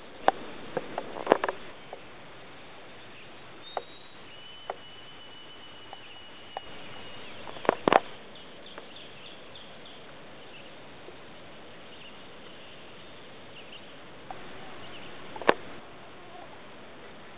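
Outdoor field recording: steady background hiss with insect-like buzzing, a thin steady high note held for about three seconds, and several sharp clicks and knocks. The background level jumps a few times between clips.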